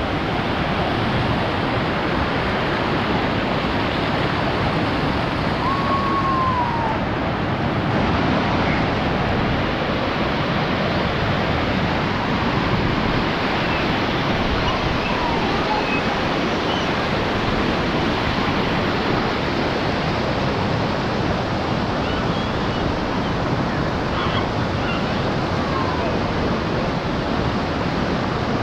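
Steady rush of a waterfall and its river pouring over the cascades: an even, unbroken wash of water noise. A few faint short chirps rise above it now and then.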